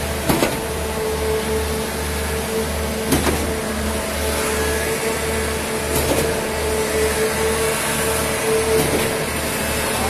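Linuo diesel trailer concrete pump running while pumping concrete: a steady engine drone with a low pulsing rumble, and a sharp knock about every three seconds as the pumping stroke changes over.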